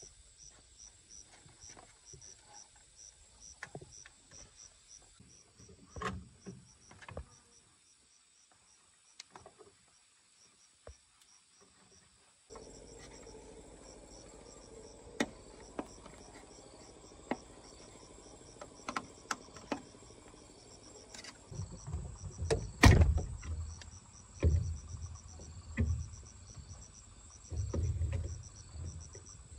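Insects chirping in a steady, evenly pulsing rhythm, with scattered sharp knocks and, in the second half, heavier thumps that are the loudest sounds.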